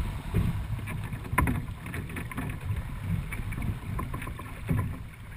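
Wind buffeting the microphone and water rushing along the hull of a Dufour 45e sailing yacht under way, with a few sharp clicks.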